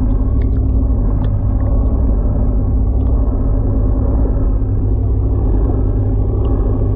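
Fishing boat's engine running steadily: a loud, even, low drone, with a few faint clicks over it.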